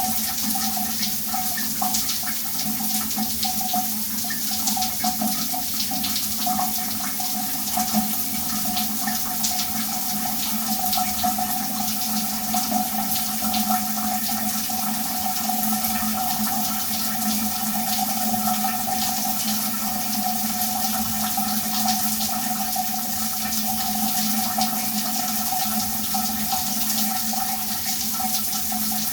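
Shower water running steadily, a dense even spatter of falling water with a steady tone running through it.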